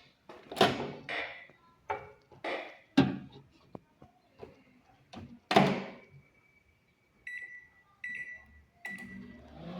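LG microwave oven being handled: a series of sharp knocks and thuds, then its keypad beeping three or four times near the end.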